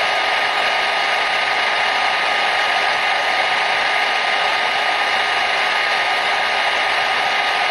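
Hair dryer running steadily: an even rushing hiss of air with a faint steady whine, unchanging throughout.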